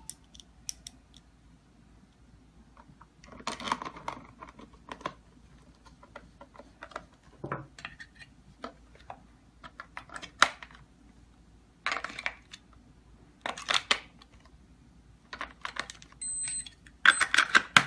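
A keypad door lock's metal back panel and fittings being handled and mounted on a door: scattered clicks, knocks and short rattles, with a brief high beep near the end.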